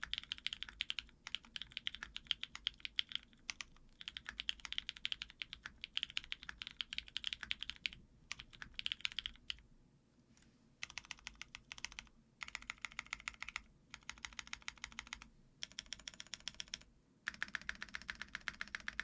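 Custom F1-8X mechanical keyboard with lubed Cherry MX Silver linear switches on an aluminum plate being typed on fast: a dense run of key clacks, then, from about ten seconds in, shorter bursts of typing with brief pauses between them.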